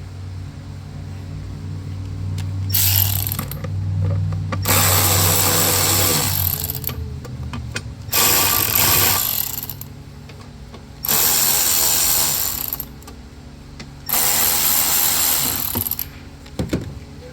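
Ratchet with a 7mm socket loosening an intake-duct hose clamp, clicking in five bursts of one to two seconds each.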